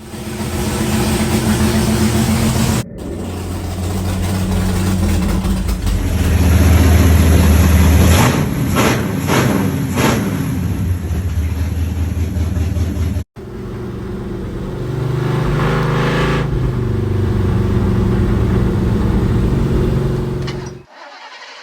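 Mini excavator engine running and revving as its hydraulics work, with the pitch rising and falling several times about halfway through. The sound cuts off abruptly and restarts twice, as separate clips are joined.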